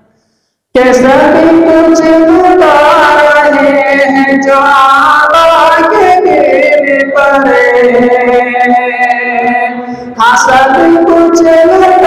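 A man singing an Urdu naat unaccompanied into a microphone, in long melodic phrases. The singing starts just under a second in after a short silence and breaks briefly about ten seconds in.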